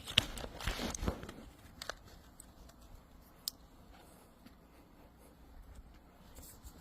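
Scattered light clicks and soft rustling of small hard objects being handled, mostly in the first two seconds with one more click a little later, then quiet room.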